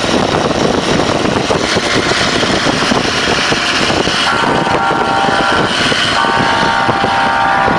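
Wind and road noise from a moving car in traffic, a dense steady rush. About four seconds in, a steady high tone joins it and holds, with a short break near six seconds.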